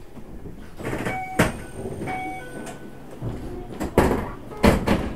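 Sharp clacks and knocks of crew-cab equipment and doors on a Keikyu New 1000 series train standing at its terminus, with two short beeps about a second apart early on.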